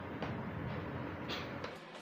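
Insulated wires being pushed into a plastic junction box by hand: light rustles and a few small clicks, the clearest about a second and a half in, over a steady low hum that cuts off near the end.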